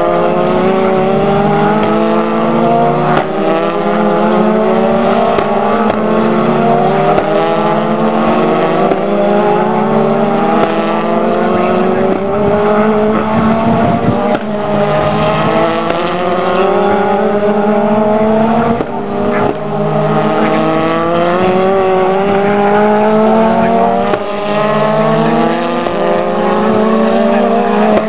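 Several Formula Two single-seater race cars with turbocharged four-cylinder engines accelerating past at racing speed. Engine pitch climbs through each gear and drops back at every upshift, with more than one car's engine heard at once.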